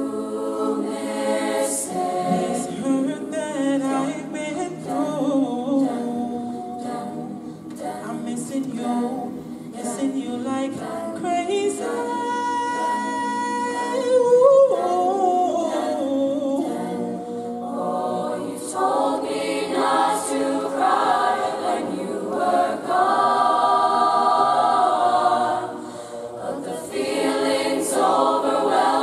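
A large mixed choir singing a cappella in several-part harmony, voices only. About halfway through a single high note is held over the group, and near the end the voices drop back briefly before swelling again.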